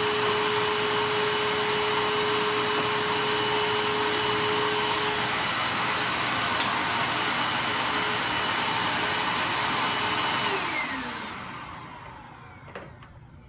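Hoover WindTunnel MAX bagged upright vacuum cleaner running steadily with a high whine, then switched off about ten seconds in, its motor winding down with a falling whine. A few faint clicks follow near the end.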